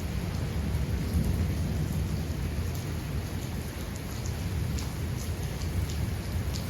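Steady heavy rainfall in a rainforest, with a low continuous rumble of thunder underneath and scattered individual drops ticking on near surfaces.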